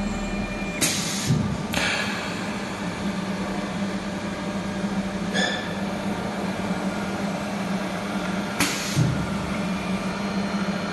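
Triangle buckle making and welding machine running with a steady hum, with short hisses about a second in, near two seconds in and near the end, and a brief squeak midway.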